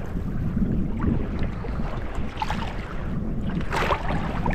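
Wind rumbling on the microphone while choppy sea slaps and splashes against a kayak's hull, with a few louder splashes, the strongest near the end.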